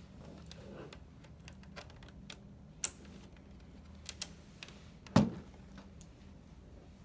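Small clicks and taps on a PS4's plastic casing as the stickers covering its screws are picked off. There is a sharp click a little before three seconds in, two quick clicks after four, and a louder knock just after five seconds.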